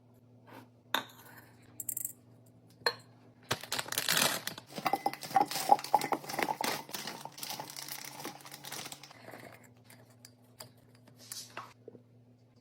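Household items and packaging being handled and set down: a run of clicks, clinks and rattling, busiest in the middle, with some crinkling of packaging. A low steady hum runs underneath.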